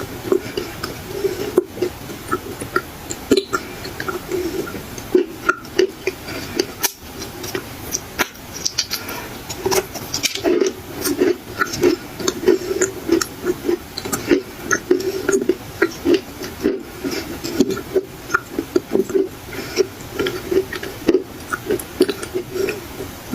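Dry black clay being bitten and chewed: an irregular run of sharp crunches and crackles.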